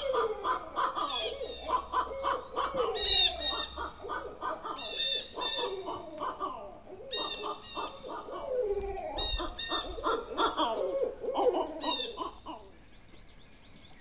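Barred owl calls: a long, rapid run of hoots and falling, cackling notes that overlap and tumble over one another, stopping near the end.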